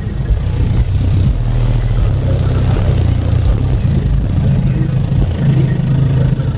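Car-audio subwoofer wall of eight 15-inch subwoofers in a fourth-order bandpass enclosure playing a song's bass line very loud, held low notes stepping from one pitch to the next.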